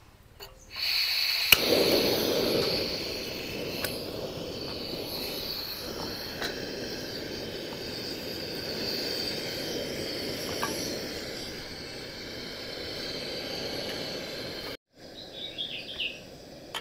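A pot of chopped bharangi leaves in water boiling on a gas stove, a steady bubbling and burner hiss that starts about a second in, with birds and insects chirping in the background. The steady noise cuts off suddenly near the end, leaving faint chirping.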